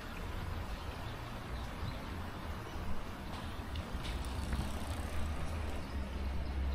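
Outdoor city ambience: a steady low rumble of traffic under an even hiss, with a few faint clicks.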